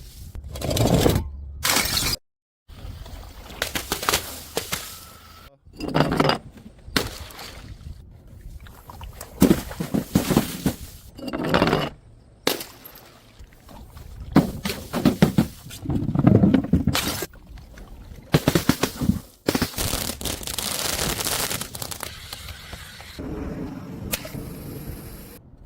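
A run of short edited clips of objects being smashed, dropped and crushed: repeated crashes, cracks and crunches, with abrupt cuts to silence between some clips.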